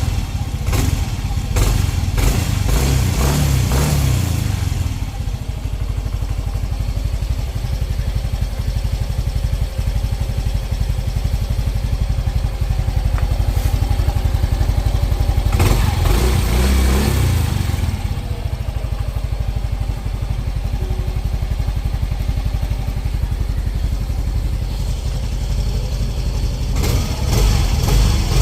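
Yamaha Mio i 125 S scooter's 125 cc single-cylinder four-stroke engine running through its stock exhaust. It idles steadily and is revved a few seconds in, again about halfway through, and once more near the end.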